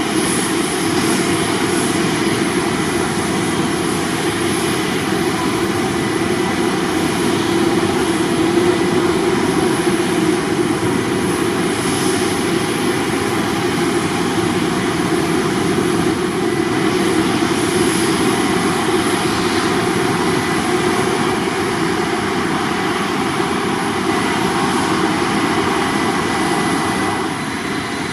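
Jet airliner engine noise: a loud, steady rush that eases slightly near the end.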